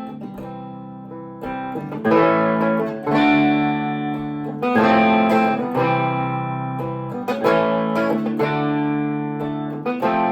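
Guitar strumming chords in an instrumental break of a song, each chord struck and left to ring before the next.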